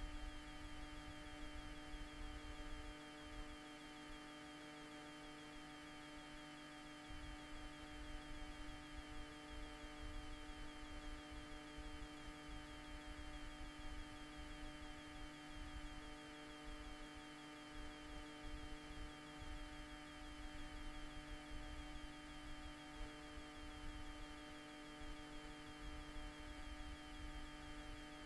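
Faint, steady electrical hum made of several fixed tones, one of which switches on and off every few seconds, over a low rumble that comes and goes.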